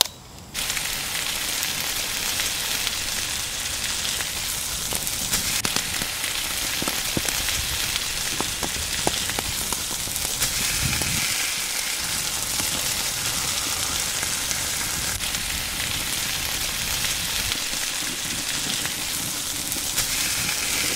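Food frying on a hot stone grill over a wood fire: a steady sizzle that starts abruptly about half a second in, with scattered small pops and crackles.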